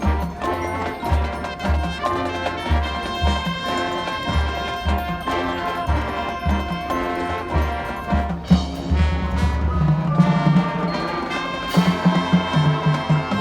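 High school marching band playing a show tune: brass carrying the melody over a steady bass drum beat.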